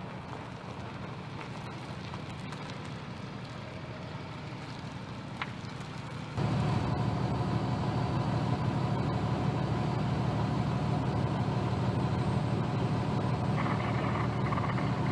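A vehicle engine idling with a steady low hum. It becomes abruptly louder about six seconds in, as if heard from closer.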